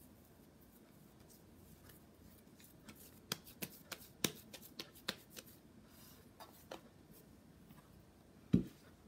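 Hands kneading and shaping a soft ball of pastry dough on a wooden board: soft rubbing, then a quick run of light slaps and taps a few seconds in, and a single dull thump near the end.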